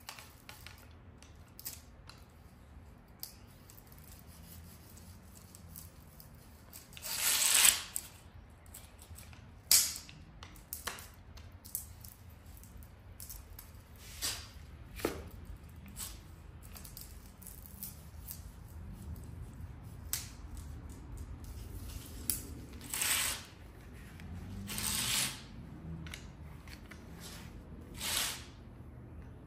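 A spline roller pressing a rubber spline into a metal screen frame's channel over the screen mesh, heard as a handful of short scraping rasps with quiet stretches between; the loudest comes about a quarter of the way in.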